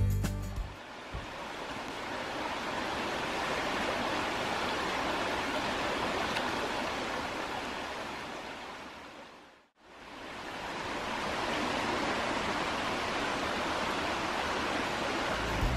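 Steady rushing noise of running water. It fades out to a moment of silence about ten seconds in, then fades back in.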